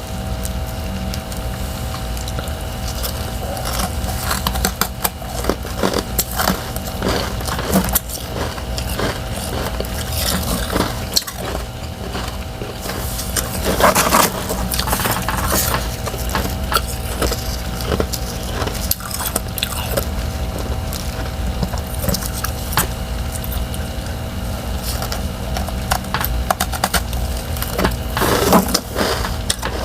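Freezer frost and thin refrozen ice chunks crunching and crackling in irregular bursts, denser about halfway through and near the end, over a steady low hum.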